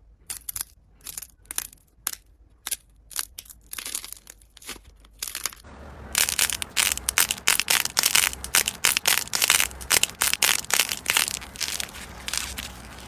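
Slime being squeezed and worked by hand, giving crisp crackles and pops. These come sparsely at first, then turn into dense, continuous crackling from about six seconds in.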